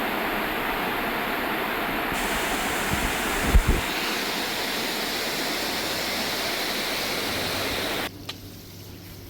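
Steady rush of flowing water that cuts off abruptly about eight seconds in, leaving a quieter low hum. A low thump comes a little past three seconds.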